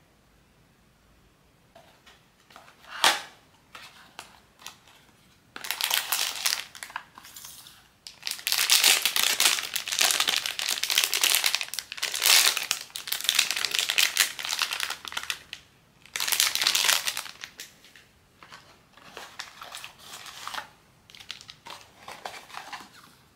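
Blind-box packaging crinkling and rustling in someone's hands as it is opened, in long bursts lasting several seconds each. There is a single sharp click about three seconds in, and the rustling is softer near the end.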